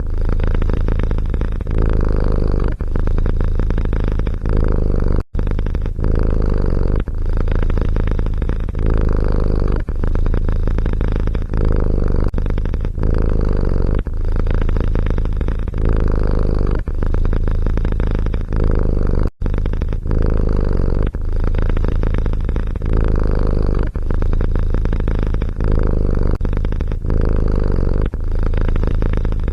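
Domestic cat purring close to the microphone: a steady low rumble that swells and dips about every second and a half with its breathing, cutting out for an instant twice.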